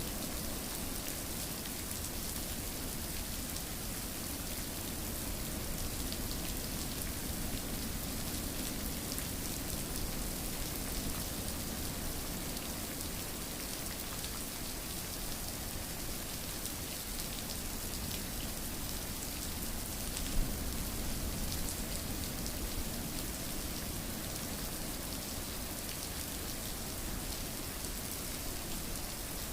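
Steady rain falling, an even hiss of many drops, with one sharper drop or tap about two-thirds of the way through.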